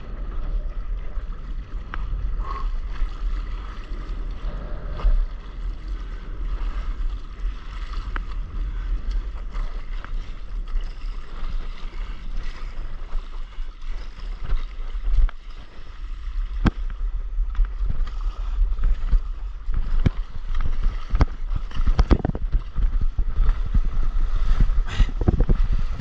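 Water splashing and sloshing around a stand-up paddleboard and its paddle, over a low wind rumble on the camera microphone. The splashing grows louder and busier in the last few seconds as the board picks up a wave and runs with spray at its nose.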